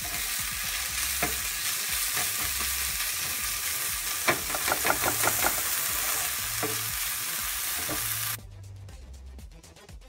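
Smoked salmon and turkey bacon sizzling in a hot non-stick frying pan while a spatula stirs and scrapes through it, with a quick run of scraping strokes about halfway through. The sizzle cuts off suddenly near the end.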